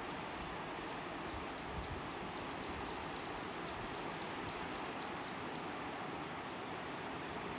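Steady rushing of the River Nile's rapids, with faint, evenly spaced chirps of an insect above it.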